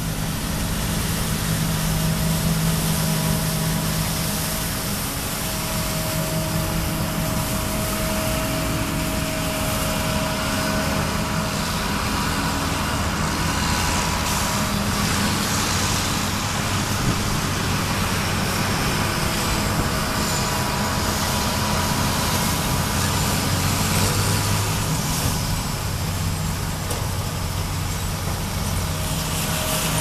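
John Deere combine harvester running steadily while harvesting wheat: a constant engine and threshing-machinery drone.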